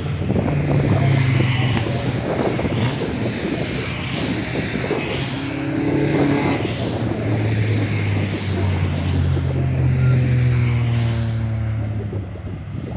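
A pack of racing saloons and sports cars passing one after another at speed, several engines overlapping, their notes rising and falling as each goes by. The noise eases off near the end as the stream of cars thins.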